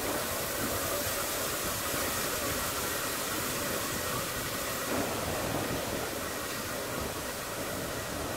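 J94 0-6-0 saddle-tank steam locomotive running slowly away into a tunnel: a steady hiss of steam and running noise, swelling a little about five seconds in.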